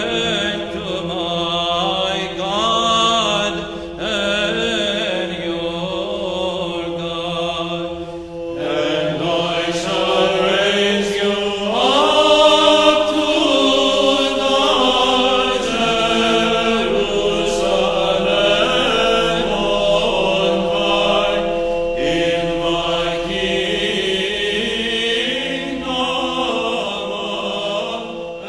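Byzantine chant sung in English in the first tone: a melody that rises and falls over a steady held drone note (the ison), with brief breaths between phrases about eight and twenty-two seconds in.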